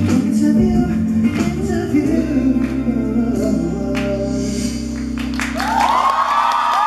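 A man singing live into a microphone over a band backing track, the song closing on a held chord. About five seconds in, the audience breaks into high-pitched screaming and cheering as the song ends.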